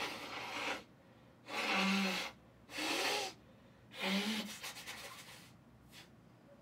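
A person making four forceful, noisy breath bursts about a second apart, with a low voiced edge to some of them; the last one trails off.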